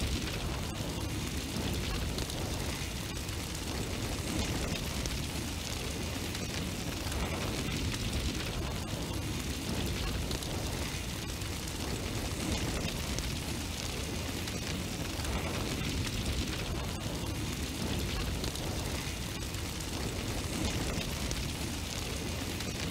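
Fire-blast sound effect: a large burst of flame burning continuously, a steady deep rumble with a hiss over it.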